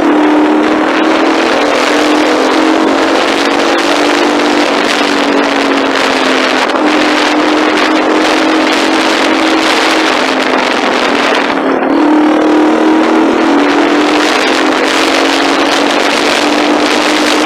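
A vehicle engine running steadily with a continuous drone, its pitch shifting slightly a few times as the revs change, over a strong rushing noise.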